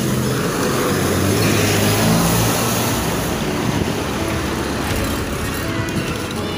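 Street traffic heard from a moving bicycle: a city bus's engine and tyres pass close in the opposite lane, loudest about two seconds in, over a steady rush of wind and road noise.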